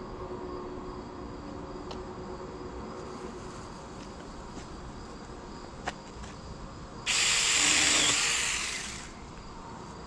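A small leafy maple branch being cut and brought down: a sudden hissing rush about seven seconds in that lasts about two seconds and then fades out.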